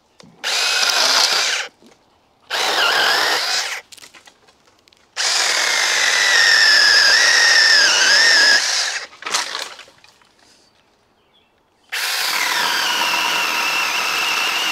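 Cordless 24-volt mini chainsaw with a 6-inch bar and brushless motor, run in several separate bursts as it cuts overhead branches. In the longest run the motor's whine sags and wavers as the chain bites into the wood.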